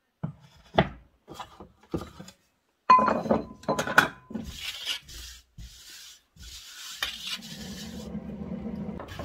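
Knocks and clatters of kitchen things being moved about on a glass-top stove, the loudest about three to four seconds in. Then hands brushing and wiping flour off the glass cooktop, a rubbing swish that grows steadier near the end.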